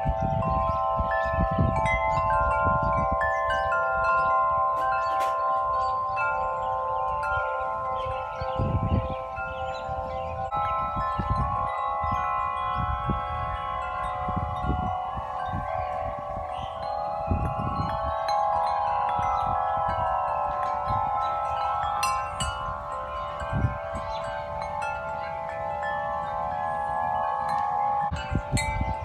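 Several large tuned metal-tube wind chimes, including Corinthian bells and Bells of Vienna, ringing together in the wind with many overlapping sustained tones. Gusts rumble on the microphone underneath.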